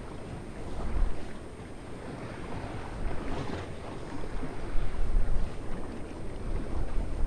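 Wind buffeting the microphone in gusts, a low rumble that swells about a second in, around three seconds and again around five seconds, over the wash of sea water along the shore.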